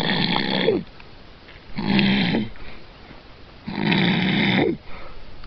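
A man snoring in his sleep: three long snores about two seconds apart.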